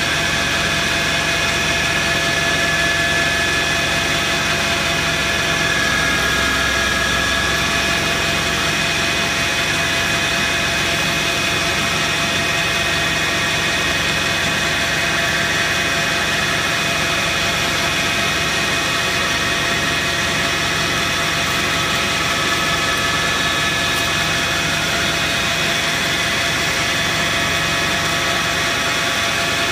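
Metal lathe running steadily while taking a facing cut on a large aluminum slug, with a constant whine and hum from the motor and gearing.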